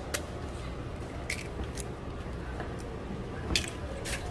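Raw eggs being cracked open by hand over metal egg-bread molds: several sharp clicks of eggshells tapping and breaking, one to two seconds apart, over a steady low hum.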